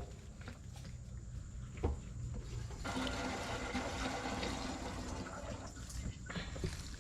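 Gasoline pouring in a steady stream from the tractor's fuel system, starting about three seconds in and easing off near the end.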